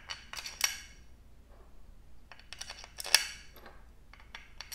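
Steel bolts and washers clinking as they are handled and slid into the holes of a plastic propeller hub: three short clusters of light metallic clicks, the loudest about three seconds in.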